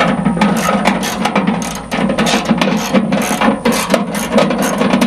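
Hand ratchet wrench clicking rapidly as it drives nylock nuts down onto the handle bolts of a chipper shredder's steel hopper.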